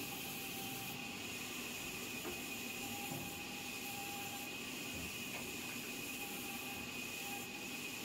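Large vertical band saw cutting a block of timber: a steady high whine over an even hiss.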